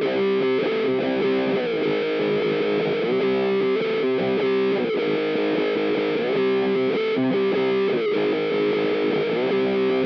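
Distorted electric guitar played through a Jam Pedals Seagull fixed (cocked) wah filter on its third sweep position, giving a filtered, cocked-wah tone. A riff that repeats about every one and a half seconds.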